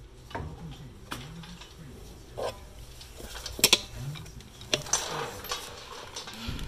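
Scattered metallic clicks and clinks of a brake caliper bracket and bungee hook being handled as the caliper is hung from the upper control arm, the sharpest knock a little before halfway.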